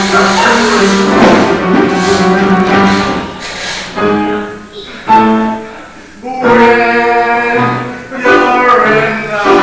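Music from a live stage musical: sustained pitched notes from instruments and voices, dipping quieter about four and a half seconds in and swelling back up about a second and a half later.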